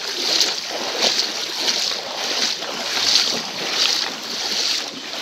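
Shallow river water running over a stony bed, a steady rushing with a soft swell about every 0.7 seconds.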